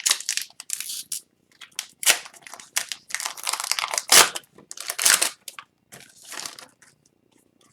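Trading card pack wrapper crinkling and tearing as a pack of hockey cards is handled and opened: a run of irregular rustles and rips that dies away near the end.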